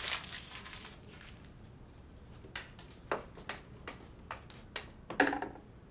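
A series of light, irregular clicks and taps, about eight over two seconds, then one louder knock with a short ring near the end.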